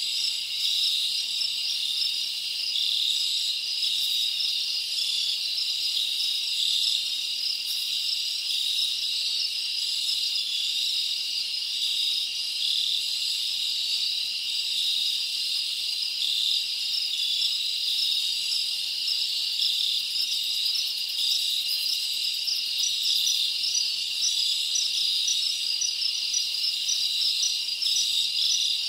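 Steady insect chorus: a dense, high-pitched trilling that goes on without a break.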